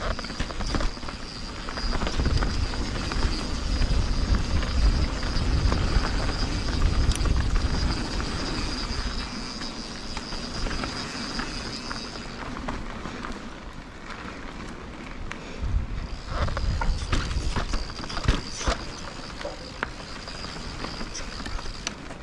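Yeti SB150 mountain bike rolling along a dry dirt singletrack: tyres crunching over dirt and small rocks with scattered clicks and knocks from the bike. Wind rumbles on the microphone, strongest for several seconds near the start and again briefly past the middle. A steady high-pitched whine drops out a little past halfway and comes back a few seconds later.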